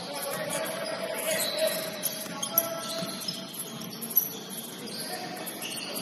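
Basketball game sounds in a gym: sneakers squeaking on the court and a few sharp thuds of the ball, over background voices.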